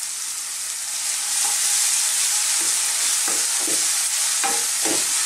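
Sliced onions and garlic paste sizzling in hot sunflower oil in a non-stick frying pan, while a wooden spoon stirs them with a few short scrapes against the pan. The sizzle swells slightly about a second in.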